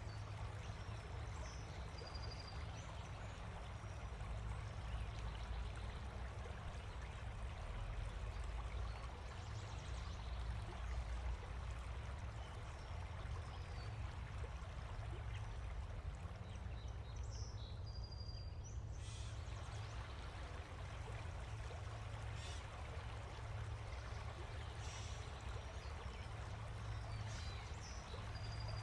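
Steady outdoor ambience: a constant rushing noise with a strong low rumble, and a few brief high bird chirps about two seconds in, around two-thirds of the way through, and near the end.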